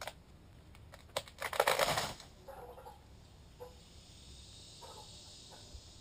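Large top section of a honey locust's crown falling and crashing down: a crack, then a dense burst of snapping and crackling branches about a second and a half in as it hits, followed by a few scattered twig cracks as it settles.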